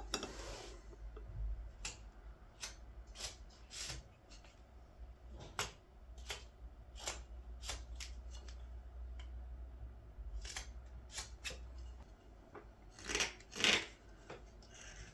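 Carving knife slicing green wood in short, crisp, irregularly spaced cuts, about a dozen of them, with a louder pair of cuts near the end.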